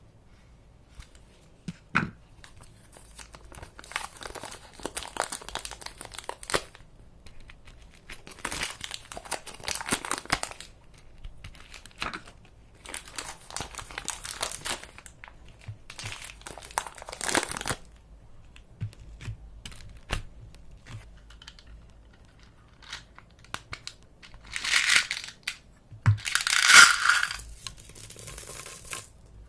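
Repeated bursts of crinkling and rustling as something is handled, about six rounds of one to two seconds each, the loudest two near the end.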